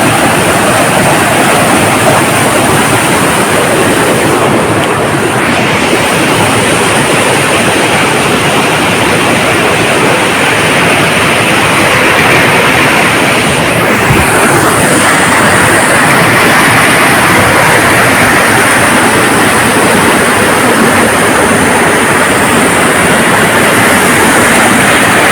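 Waterfall: water pouring down from the hill above in a loud, steady rush.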